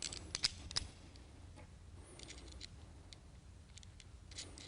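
Light metal clicks and taps of a 5/16 carriage bolt and nut being fitted by hand through a row valve bracket. A few sharp clicks come in the first second, then scattered faint ticks.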